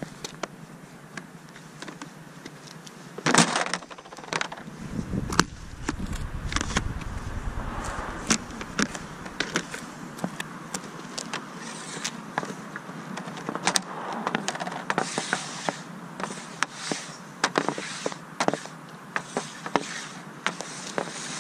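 Rubber hockey pucks being dropped, set down and pushed around on a plastic shooting pad, with a hockey stick tapping among them: a long, irregular run of sharp clacks and knocks. There is a loud knock about three seconds in, then a low rumble for a couple of seconds.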